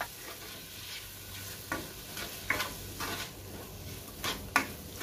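Chopped tomato, onion and carrot sizzling in a non-stick frying pan as a spatula stirs them, scraping and knocking against the pan about five times.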